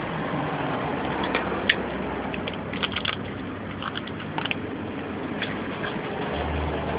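A dog cracking and chewing pecans in the shell: irregular sharp cracks and crunches, clustered between about one and four and a half seconds in, over steady background noise.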